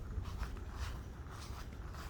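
Footsteps of a person walking on a path, about two steps a second, over a low steady rumble.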